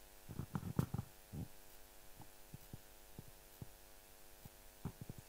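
Steady electrical hum from the sound system, with soft thumps and knocks of a handheld microphone being handled: a cluster in the first second and a half, faint ticks about twice a second after that, and a few more near the end.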